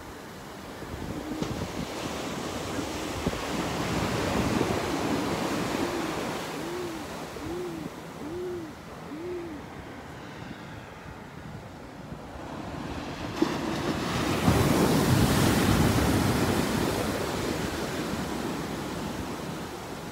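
Ocean surf washing in and breaking on the sand below, swelling twice and loudest about three quarters of the way through. A little before the middle comes a run of short low hooting notes, evenly spaced under a second apart.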